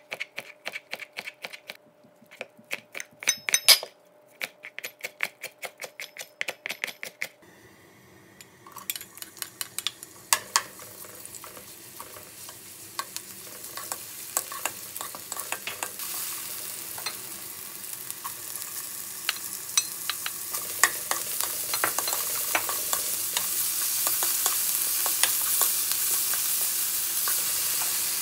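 A kitchen knife chopping bacon on a plastic cutting board in quick, rhythmic strokes. About eight seconds in this gives way to oil sizzling in a wok as sliced green onions and then bacon are stir-fried, with a spatula scraping and tapping the pan. The sizzle grows louder toward the end.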